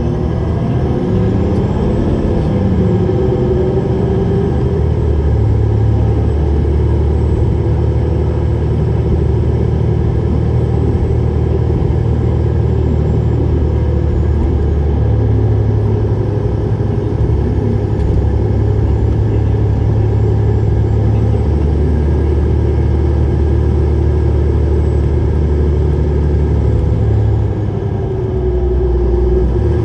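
Isuzu Erga city bus (PDG-LV234N2) under way, its diesel engine running steadily. The engine note shifts up and down as the bus accelerates and eases off, under a faint high whine that rises and falls twice.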